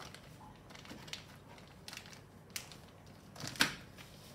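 Paper card being handled during crafting: scattered crinkles and light taps, with the loudest rustle about three and a half seconds in.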